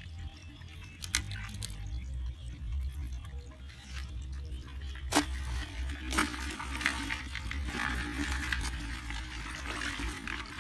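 Live crabs being handled and put into a plastic bucket with other crabs: a few sharp knocks of shell on plastic, about one, five and six seconds in, over a steady low rumble.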